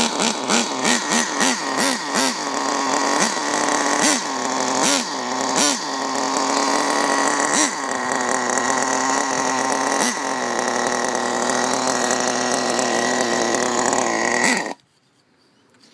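Small nitro engine of a radio-controlled car running after starting, with a high buzz that rises in short repeated blips and then runs more steadily. It stops suddenly near the end.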